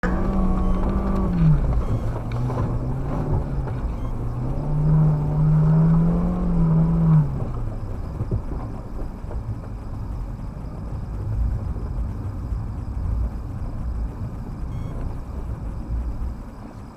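Vehicle engine running, its pitch dropping, then rising and holding, then dropping again over the first seven seconds or so, followed by a steady low rumble.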